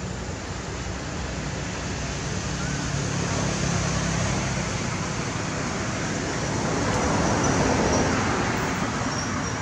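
Steady road traffic noise with a low engine hum, swelling as a vehicle passes near the end.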